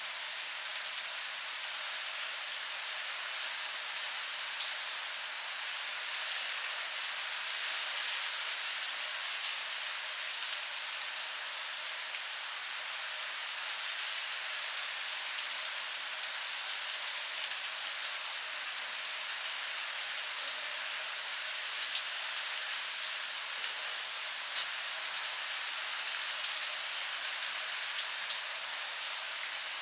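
Steady rainfall: an even hiss with many scattered, sharper ticks of individual drops striking surfaces.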